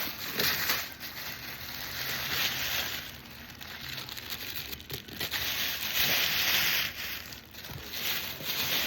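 Packaging being handled and pulled open, crinkling and rustling in several bursts.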